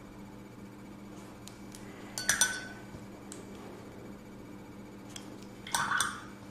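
Two short bursts of light clinking on glass, about two seconds in and again near the end, the first with a brief ring: a paintbrush tapping against glass while painting with acrylics.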